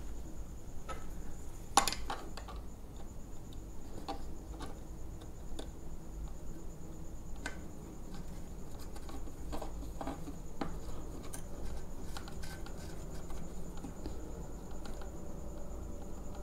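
Small metal clicks and scrapes of a valve core tool turning a valve core back into a tyre's valve stem, with one sharper click about two seconds in.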